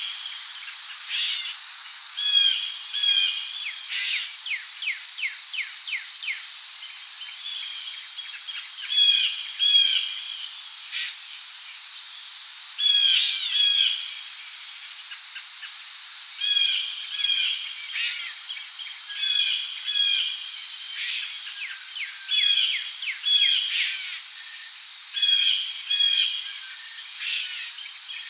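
Rainforest ambience: a steady high-pitched insect drone under birds repeating short chirping calls every second or two, with a quick run of rapid chirps about five seconds in.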